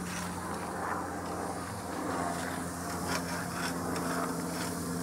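Helicopter flying overhead: a steady low engine and rotor drone.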